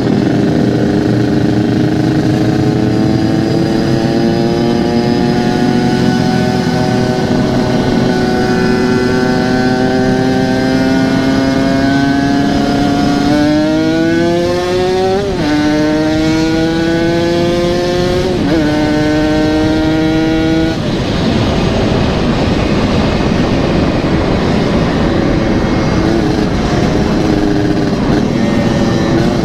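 Yamaha RX-King's 135 cc two-stroke single engine, running through a local-made aftermarket exhaust while ridden. Its note climbs slowly, then revs up quickly twice, dropping sharply in pitch at each upshift about halfway through. A little later the note turns rough and uneven for several seconds before settling to a steady tone near the end.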